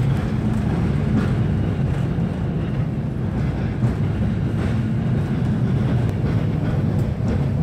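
Railcar running along the track, heard from inside the passenger compartment: a steady low rumble of engine and wheels.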